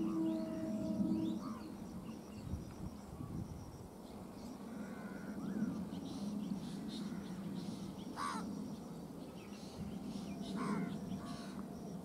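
Birds calling several times in the second half, over a low steady rumble; a steady horn-like tone sounds for about the first second and a half.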